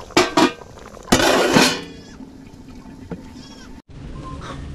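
Goat bleating: two short calls, then a longer call about a second in.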